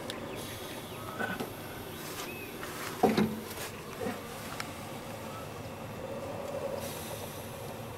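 Torque converter being worked onto a 6L80E transmission's input shaft by hand: a few short clunks over a steady background hiss, the loudest just after three seconds in.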